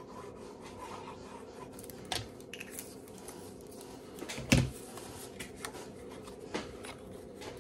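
Card and paper being handled on a desk: light rustling and ticks, with a sharper knock about four and a half seconds in.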